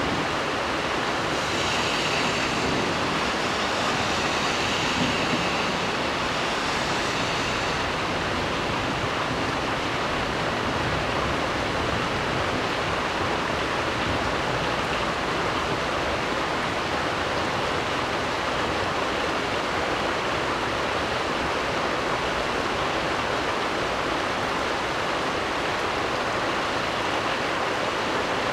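Heavy rain falling in a steady, unbroken downpour during a severe thunderstorm, with no thunderclaps.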